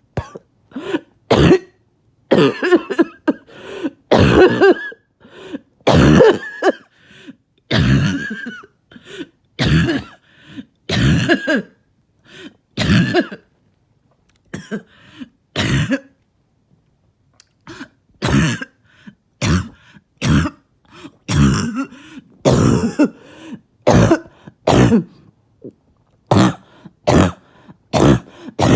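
A person's harsh, barking cough coming in repeated fits of short, sharp coughs, with throat clearing between them and a break of about two seconds a little past the middle.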